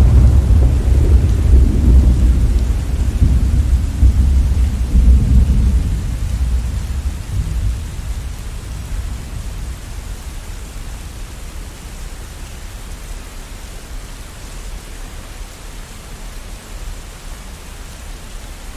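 Thunderstorm: a loud clap of thunder breaks in at the start and rolls for several seconds, dying away over about ten seconds, over steady heavy rain.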